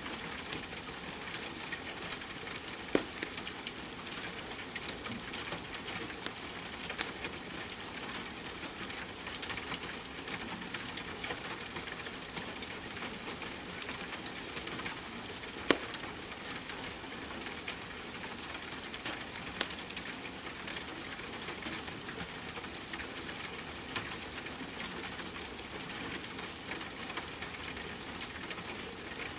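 Wood fire crackling, with a few louder pops, over a steady hiss of falling rain.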